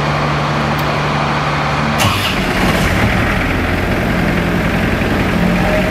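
The 1995 International 4900 vacuum truck's diesel engine running steadily. About two seconds in there is a sharp clack, after which the running note changes.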